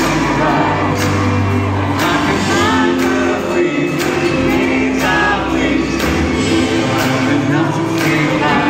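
Live pop band playing in an arena, a male lead singer singing into a microphone over a steady drum beat and sustained bass and keyboard chords, heard from the audience.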